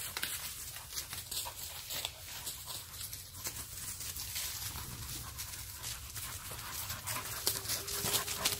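Dogs moving about on dry woodland leaf litter: a continuous crackling rustle of paws and footsteps, with panting. A brief thin whine comes near the end.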